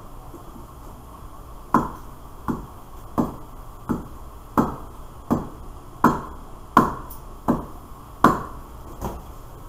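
A riflescope on an iron stand being struck with a hammer in a shock-resistance test: about eleven sharp, evenly spaced blows, roughly one every 0.7 s, each with a brief metallic ring. The blows start about two seconds in and stop shortly before the end.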